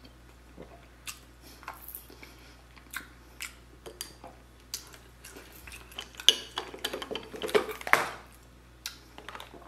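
Boiled crab being handled and broken apart: scattered clicks and crackles of shell, with a busier stretch of clatter about six to eight seconds in.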